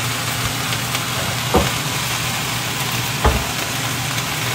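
Water spinach sizzling as it stir-fries in a thin wok, a steady frying hiss over a low steady hum, with two brief knocks, the first about a second and a half in and the second a little past three seconds.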